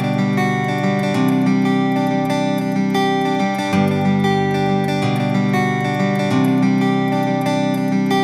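Background music led by acoustic guitar, with the chords changing every second or two.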